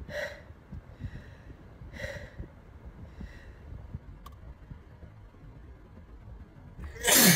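A woman working up to a sneeze: three faint breathy catches of breath about a second and a half apart, then a sudden loud sneeze near the end. She has a cold and has been sneezing every couple of minutes.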